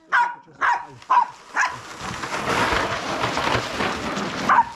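Small dog yapping quickly, about four short high barks in the first second and a half, then a steady rushing noise for about two and a half seconds, then one more bark near the end.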